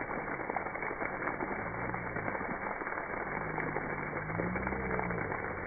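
Splash pad ground jets spraying water, a steady crackly splashing.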